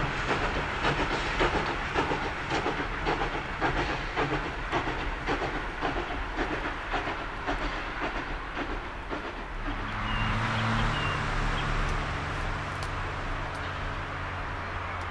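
Passenger coaches of a steam train rolling past, their wheels clicking over the rail joints in a steady rhythm. About two-thirds of the way in, this gives way to a steady hiss with a low hum from the steam locomotive approaching from afar.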